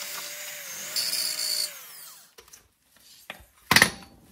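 Cordless power tool spinning a wire brush against the rusty steel of a VW Golf MK4 front fender, a scraping rasp over a motor whine, grinding the rust down toward bare metal. It scrapes harder for a moment about a second in, then runs down and stops about two seconds in; a sharp clatter follows near the end.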